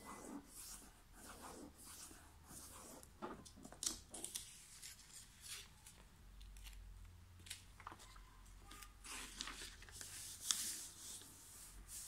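Origami paper being folded and creased by hand: faint rustling and crinkling with scattered sharp paper crackles, the loudest about four seconds and ten and a half seconds in.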